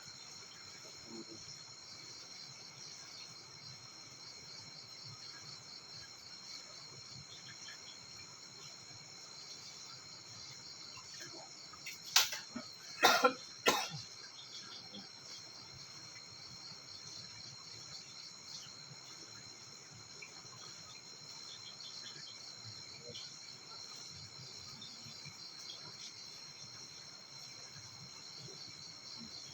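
Crickets and other insects chirping in a steady, high, finely pulsing chorus. Three brief loud sounds cut in about twelve to fourteen seconds in.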